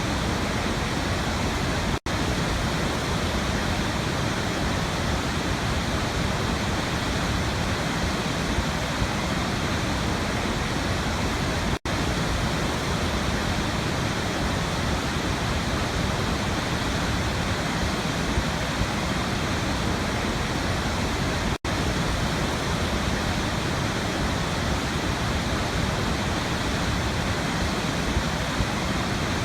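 Waterfall rushing in a steady, dense roar of falling water, broken by a very brief cut to silence about every ten seconds.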